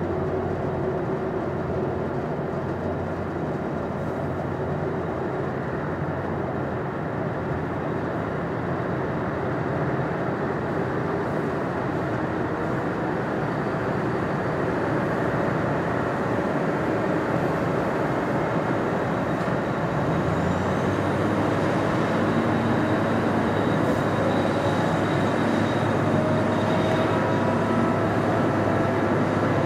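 Airbus A330-300 jet engines running steadily, with a whine; about twenty seconds in, several tones of the whine start rising in pitch and the sound grows slightly louder.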